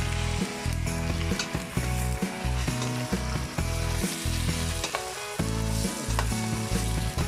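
Raw chicken pieces sizzling in hot oil with garlic and onion in a stainless steel pot, stirred with a metal spoon that knocks against the pot a few times. A low hum comes and goes underneath.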